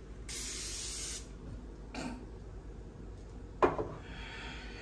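Aerosol sunscreen spray can hissing for about a second as it is sprayed onto the face. A sharp knock comes about three and a half seconds in, followed by a fainter hiss.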